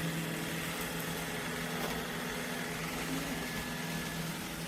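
Roomba j7+ robot vacuum running with a steady hum.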